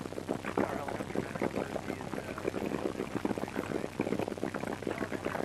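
Small helicopter heard from inside its open-doored cabin while climbing: the engine and main rotor give a steady hum under a rapid, regular beating of the rotor blades, with wind rushing past the microphone.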